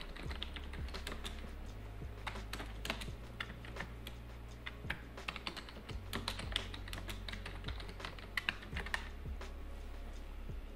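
Typing on a computer keyboard: irregular keystroke clicks in quick runs with short pauses between them.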